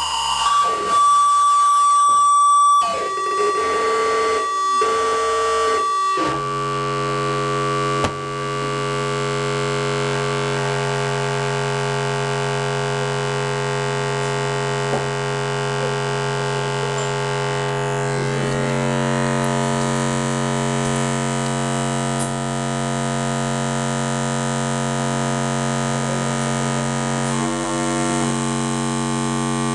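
Live electronic music from a keyboard synthesizer and effects: for the first six seconds choppy, stuttering tones with a piercing high whistle, broken by short drop-outs, then a steady, dense droning chord with a noisy, harsh texture.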